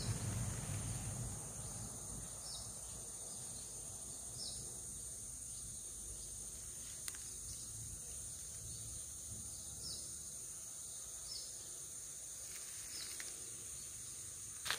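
Steady high-pitched drone of tropical forest insects, with short high chirps every second or two.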